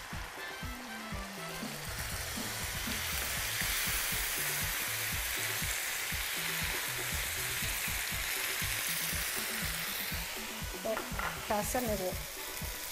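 Tomato purée sizzling as it hits the hot oil in a frying pan while a wooden spatula stirs it. The sizzle builds over the first few seconds and then holds steady, easing off near the end.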